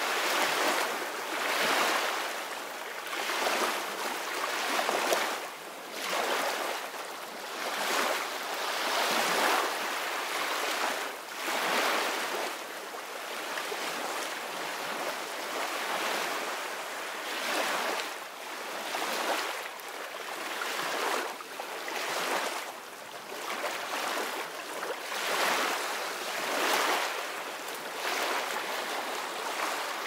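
Small waves breaking and washing up a sandy beach: a steady hiss of surf that swells and eases every couple of seconds, with little deep rumble.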